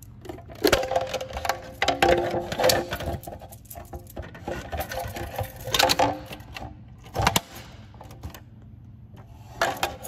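Clear plastic protective cover over a Notifier pull station being handled and lifted, giving irregular plastic clattering and knocks in several bunches, the sharpest near the middle and about seven seconds in.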